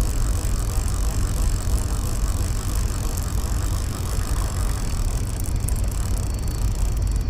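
Conventional catfish reel being cranked steadily, its gears whirring as line is wound in, over a low rumble.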